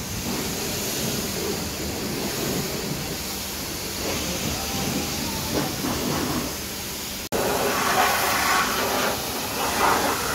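Steady hiss of a car wash, then after a sudden break about seven seconds in, a louder, harsher hiss of a pressure-washer jet spraying water onto a soaped car engine bay.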